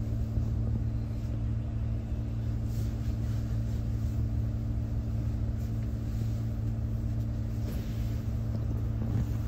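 Low-floor city bus engine running steadily with an even, low hum, heard from inside the passenger cabin.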